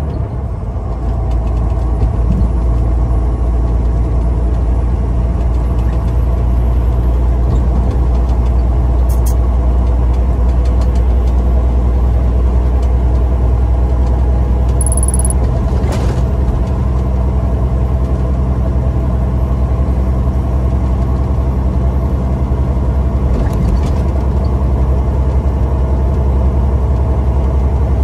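Semi-truck engine and road noise heard inside the cab while cruising on a highway: a steady low drone that holds even throughout.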